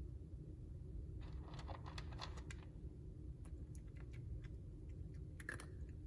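A cat eating dry kibble from a plastic feeder bowl: faint crisp crunches and kibble clicks, a run of them about a second in, scattered single ticks after, and a short cluster near the end.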